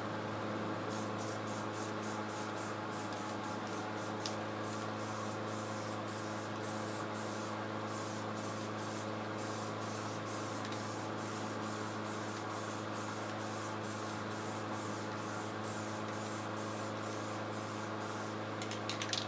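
Aerosol spray-paint can hissing almost without pause as a light first coat of paint is sprayed onto a steel plow blade; the hiss cuts out briefly again and again between passes.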